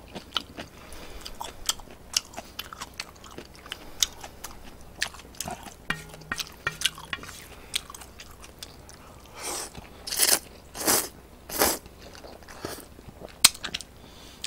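Someone eating instant ramyeon noodles: soft wet chewing and mouth clicks throughout, with four loud slurps of noodles in quick succession about two-thirds of the way through.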